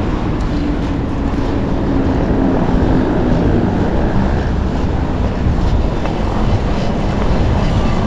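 Street traffic noise with wind buffeting the microphone, a steady loud rush.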